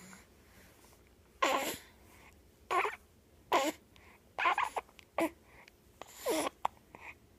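A run of hiccups: six or seven short, pitched, voice-like jolts, irregularly spaced about a second apart, several dropping in pitch.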